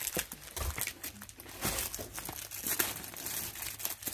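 Plastic packaging crinkling in irregular bursts as it is handled: the wrap of a vacuum-compressed plush koala pillow.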